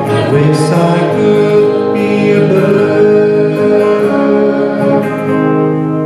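Live acoustic music: singing over two strummed acoustic guitars, settling into a held chord that rings on near the end.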